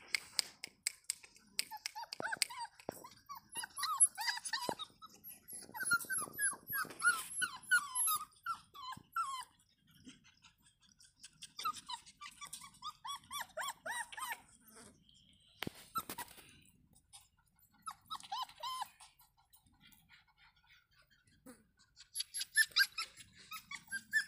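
Five-week-old Rottweiler puppies whining and yelping in short, high, overlapping calls. The calls come in bursts of a few seconds with quiet gaps between them, and scattered sharp clicks run through.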